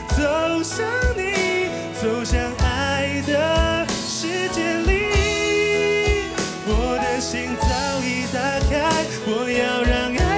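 A man singing a slow pop song into a handheld microphone over a backing track of held chords and a steady drum beat.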